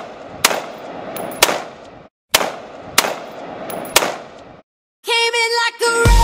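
Gunshots, about six sharp bangs in two bursts, each trailing off in echo. Music starts about five seconds in.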